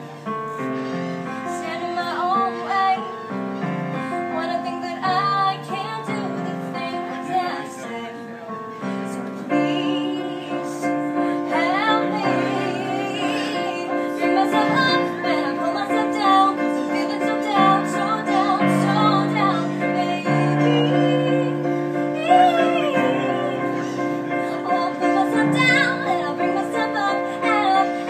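A woman singing while accompanying herself on a Yamaha digital piano: held keyboard chords under a wavering sung melody. The music grows fuller and louder about ten seconds in.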